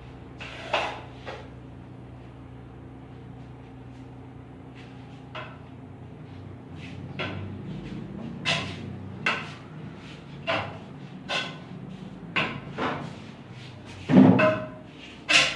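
A series of sharp knocks and clicks at irregular intervals, coming more often in the second half, with the loudest a little before the end, over a steady low hum.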